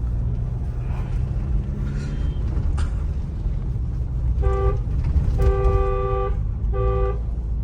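Steady engine and road rumble of a moving Mahindra Scorpio N diesel, heard from inside the cabin. About four and a half seconds in, a two-tone car horn sounds three times: short, long, short.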